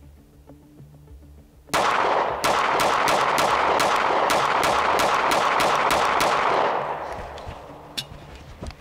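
9mm semi-automatic pistol fired rapidly: a string of more than a dozen sharp shots, about three to four a second, starting about two seconds in and ending after six seconds, then dying away. A single sharp click near the end.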